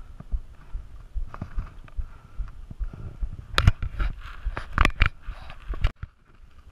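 Handling noise on the camera: dull thumps, then a few sharp knocks and rubs as fingers touch the camera body, loudest between about three and a half and five seconds in. It cuts off abruptly near the end.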